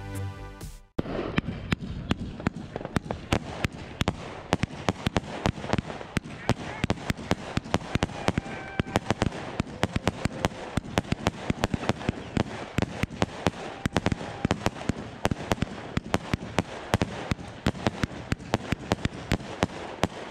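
Electronic music ends about a second in. Then a Funke Lemon Sky 50-shot, 20 mm fan cake fires, a quick run of sharp launch pops, several a second, over a steady hiss.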